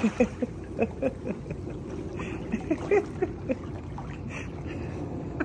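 Pool water sloshing and gurgling as a dog paddles across a swimming pool with a plastic bucket in its mouth, short gurgles coming thick and fast for the first few seconds and then settling into a softer lapping.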